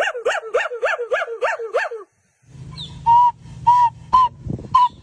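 Monkey calls: a fast run of pitched whooping calls, each rising and falling, about three a second, then after a brief break a series of short, high squeaky calls about twice a second over a low steady hum.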